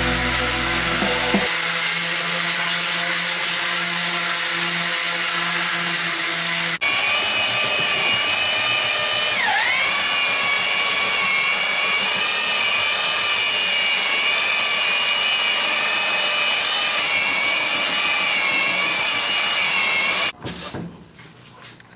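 Electric sanders running on wood. First comes a round-pad orbital sander on a wooden chair, then a rectangular sander on a wooden cabinet with a steady whine that dips in pitch briefly and recovers. The sander stops shortly before the end.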